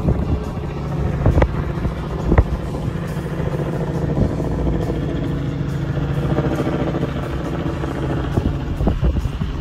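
Steady vehicle engine and road noise from a car rolling slowly past parked race UTVs, heard through the open side window, with a couple of sharp knocks in the first few seconds.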